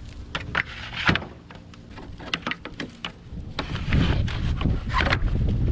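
Knocks and clicks of plastic bagger parts being handled and fitted onto a riding mower's double bagger, followed by a low rumbling noise from about three and a half seconds in.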